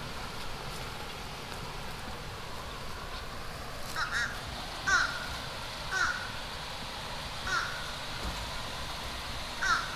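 A crow cawing five times, starting about four seconds in, with a second or two between calls, over a steady low background noise.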